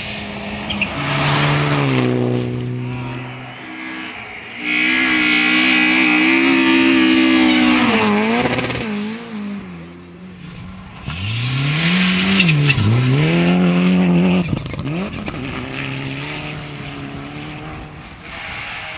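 Rally car engines at high revs passing one after another on a snowy stage, in about three loud passes. The pitch holds high and then dips and climbs again with lifts and gear changes, with a few sharp cracks as the revs drop.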